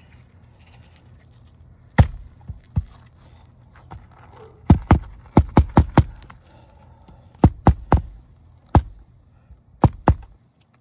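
Hammer driving roofing nails into an asphalt shingle: about fifteen sharp strikes, a few single blows and then quick runs of two to four taps as each nail is set flush.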